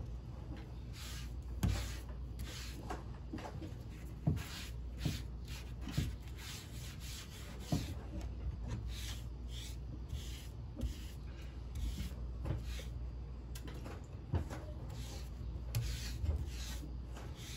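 Foam brush rubbing over a plywood bench top in repeated short strokes as waterproofing sealer is spread on, with a few light knocks in the first half.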